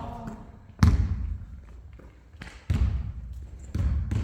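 Basketballs bouncing on a gym floor: several separate heavy thuds a second or so apart, each trailing off with some echo.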